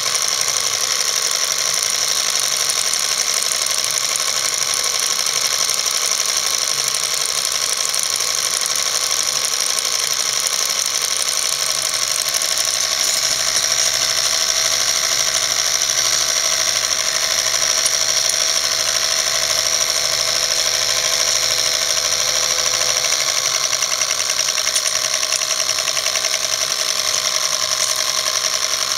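Film projector running steadily, its motor and film-advance mechanism making a constant mechanical whirr and clatter.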